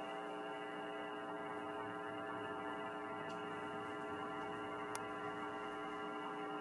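A steady electrical hum with many overtones, unchanging in pitch and level, with a faint click about three seconds in and another about five seconds in.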